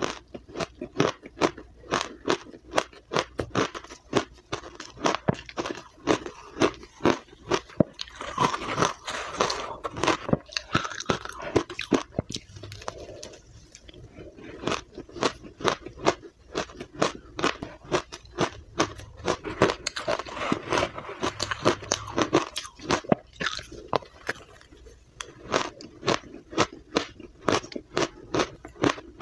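Powdery matcha ice, crushed in a blender and frozen, being bitten and chewed: a rapid run of crisp crunches, several a second.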